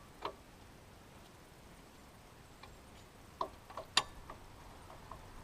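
A few sharp metallic clicks and clinks of a wrench working on a tie-rod end nut: one just after the start, then a small cluster about three and a half seconds in, the loudest near the four-second mark.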